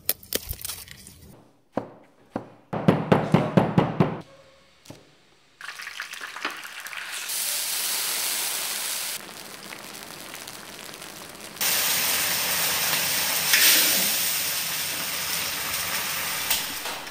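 A few sharp snaps and clicks, then a quick run of about seven sharp chops, roughly five a second. Then hot oil sizzling and spattering as diced eggplant with minced beef and chili is stir-fried in a wok, the hiss growing louder about two-thirds of the way in.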